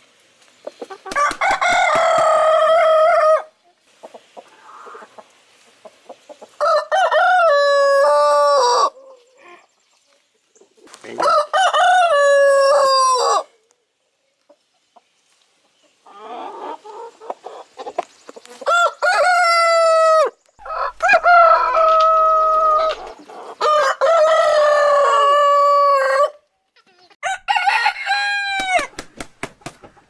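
Roosters crowing: about seven long crows from several different birds, each a drawn-out call that holds its pitch and drops off at the end, with short gaps between.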